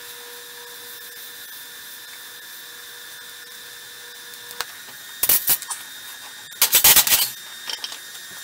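TIG welding arc running with a steady faint hum over a background hiss, cutting off a little past halfway through. It is followed by a few loud bursts of noise, the loudest cluster near the end.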